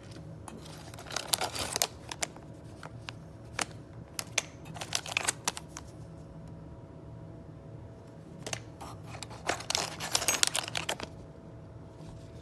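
Hands handling small parts and packaging: three short spells of crinkling and clicking, about a second in, around five seconds in and near ten seconds, over a steady low hum.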